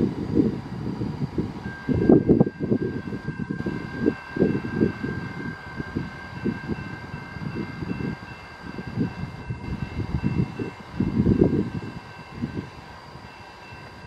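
A train rolling past, with an uneven low rumble and clatter. A steady high-pitched squeal joins about two seconds in and holds.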